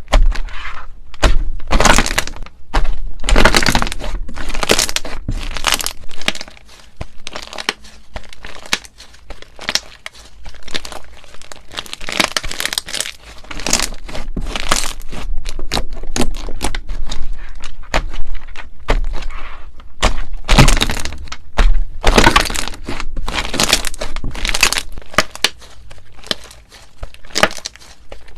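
Slime being squeezed and worked by hand, giving dense runs of loud crackling and popping that come in clusters with short quieter stretches.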